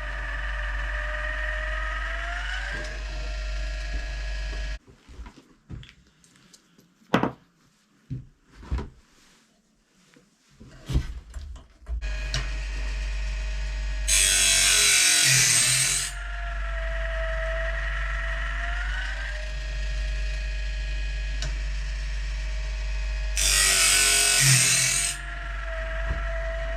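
Electric motor of a blade-sharpening tool running with a steady hum. It stops about five seconds in, leaving a few clicks and knocks of handling, then starts again. Twice a loud hissing grind comes in for a couple of seconds as the wheel meets the blade, and the motor's pitch sags under the load.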